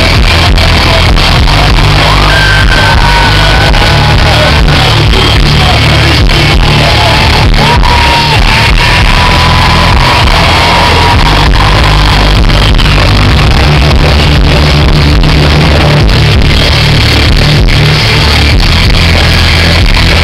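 Live rock band playing loud through a big PA, with a singer holding long melody notes through the first half and some crowd shouting.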